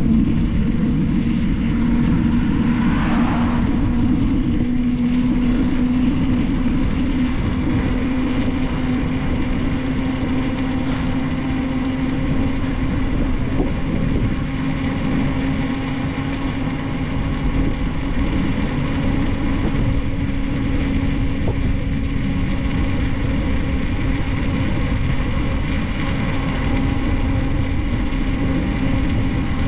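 Wind rushing over the microphone and the rolling road noise of a bicycle coasting down a paved road, with a steady hum that rises slowly in pitch.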